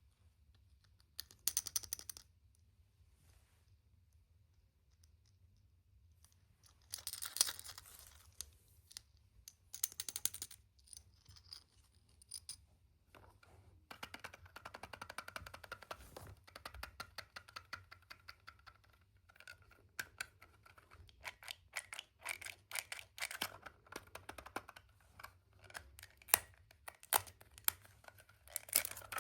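Hands unwrapping and handling surprise eggs: crinkling and tearing of wrapper and packaging with small clicks, in irregular bursts.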